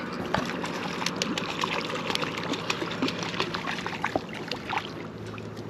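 A hooked trout splashing and swirling at the water's surface as it is reeled in toward the bank on a spinning rod, with many small, sharp ticks scattered through the splashing.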